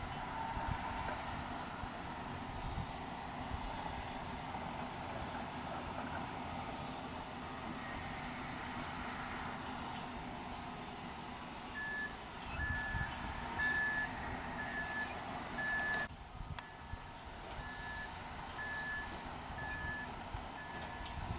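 A loud, steady high-pitched insect chorus that cuts off abruptly about two-thirds of the way through. From just past the middle, short electronic beeps repeat about once a second, as from a construction machine's warning alarm.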